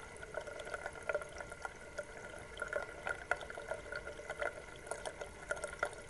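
Water trickling and bubbling steadily, with many small irregular drips and plinks.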